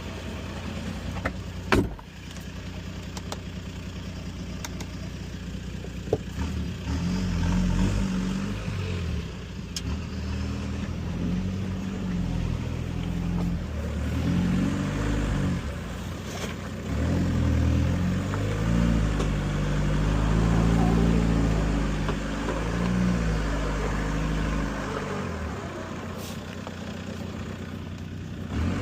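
A vehicle engine running, its revs rising and falling in steps from about six seconds in, after a few sharp knocks near the start.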